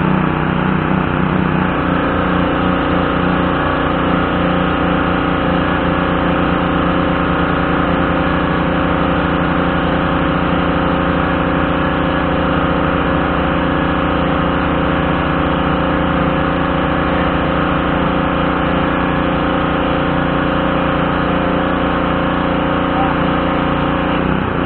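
Craftsman pressure washer's Briggs & Stratton 550E series 140cc single-cylinder engine running at a steady speed.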